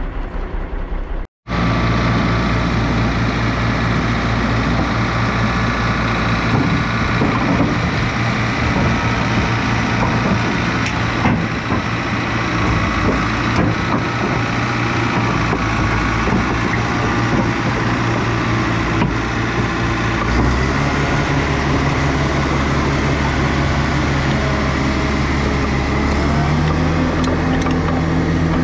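Caterpillar 953 track loader's diesel engine running under way, its speed stepping up about two-thirds of the way through and again near the end.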